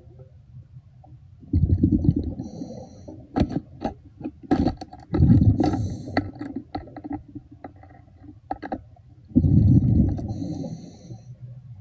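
A diver breathing through a regulator underwater: a bubbling rumble of exhaled air comes three times, about every four seconds, each with a short hiss. Sharp clicks and knocks sound in between, a little before the middle and again near the end.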